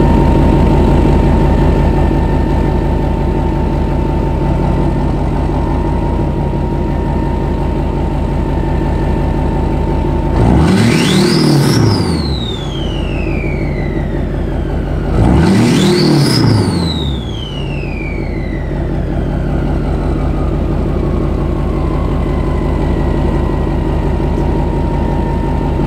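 LLY Duramax diesel with a 64mm turbo idling with a steady turbo whistle, then revved twice, about 10 and 15 seconds in. Each rev makes the turbo whistle climb sharply, then wind down slowly over several seconds as the engine drops back to idle.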